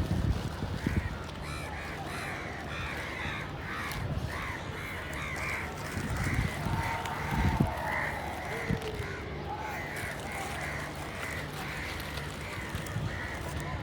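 Several crows cawing, short harsh calls repeating and overlapping two or three times a second, over a low steady hum.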